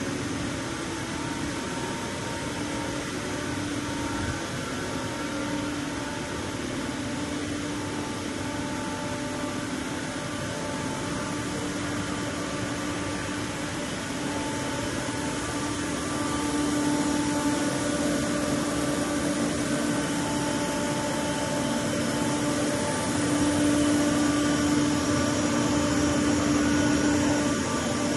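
Parpas THS 25 CNC milling machine running, a steady mechanical hum with a wavering whine that gets louder in the second half.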